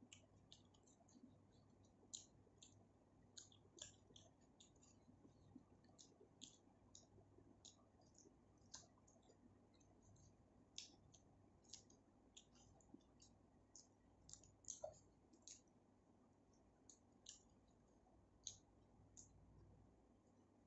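Faint eating sounds: many small, sharp, irregular clicks, a few a second, from chewing and handling food while eating biryani, over a faint low hum.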